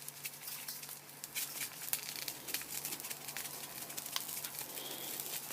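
Padron peppers crackling faintly in a hot wok, with many small scattered clicks and pops, and light crinkling as a sea salt container is handled.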